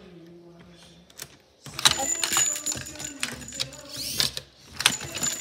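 Loud irregular rattling and clattering with many sharp clicks and a thin high squeak, starting about two seconds in.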